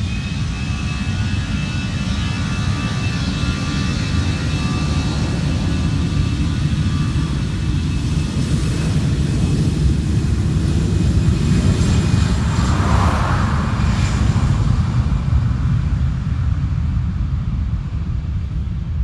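Airliner jet engines powering up for takeoff: a loud, steady low rumble with a high whine that holds steady and fades over the first several seconds. The rumble grows to its loudest about two-thirds of the way through.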